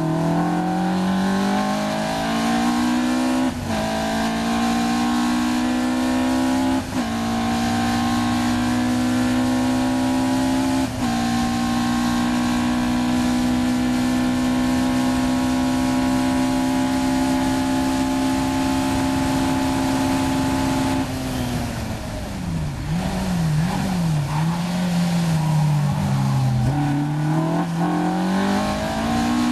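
Caterham R400's four-cylinder engine heard from the open cockpit at full throttle, climbing through the gears with three quick upshifts in the first eleven seconds, then holding a steady high note flat out down the straight. About 21 seconds in the driver lifts off hard to brake, and the note drops with several blipped downshifts, then climbs again under acceleration out of the corner near the end.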